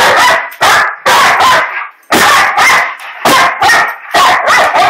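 A Labrador–dachshund mix dog sneezing hard and repeatedly, in quick fits of two or three loud sneezes about once a second. The sneezing was set off when a puppy aggravated her.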